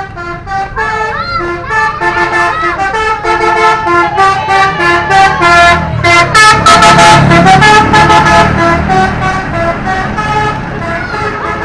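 Indonesian bus telolet horn, a multi-tone air horn, playing a quick tune of short stepped notes. A low engine rumble swells under it, loudest about six to nine seconds in.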